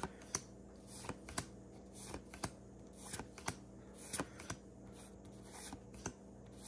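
Pokémon trading cards being flipped through by hand, one card at a time: a soft flick and slide of card stock about once a second, over a faint steady hum.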